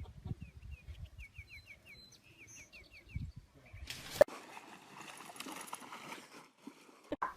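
A bird chirping outdoors: a quick run of short, high, falling notes. About four seconds in there is a sharp click, followed by a steady hiss with scattered faint noises.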